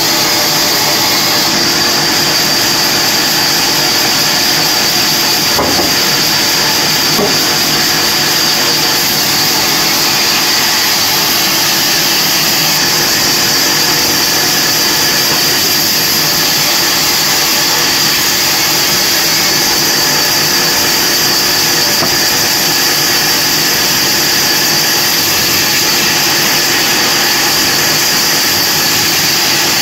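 Large vertical bandsaw running with a steady, loud high whine as a log is pushed through the blade and sawn.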